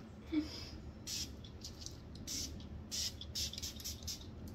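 Setting spray pump bottle misting onto a face in a series of short hissing spritzes, starting about a second in and coming in quick succession.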